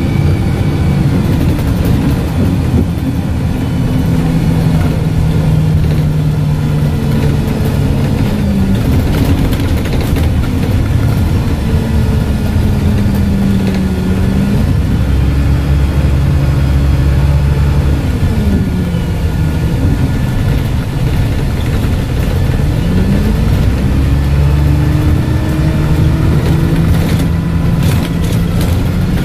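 Dennis Dart SLF bus heard from inside, its diesel engine and loud Voith automatic gearbox running under way. The drone falls about two-thirds through as the bus slows, then climbs again as it pulls away, with a few brief rattles near the end.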